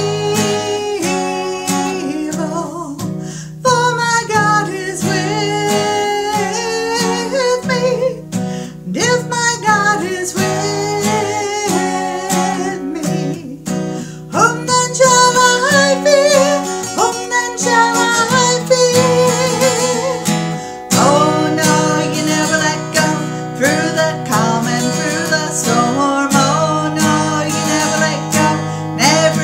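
A woman singing a worship song, accompanied by a strummed acoustic guitar.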